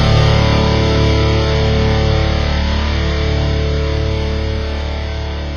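Heavy-metal music: a distorted electric guitar chord left ringing out and slowly fading.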